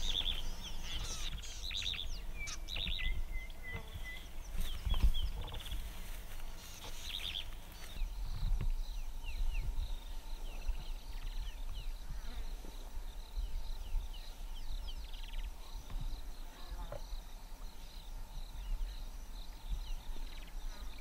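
Outdoor bush ambience: several birds chirping and calling, busiest in the first seven seconds or so, with a short run of repeated notes around three seconds in, over a steady low rumble.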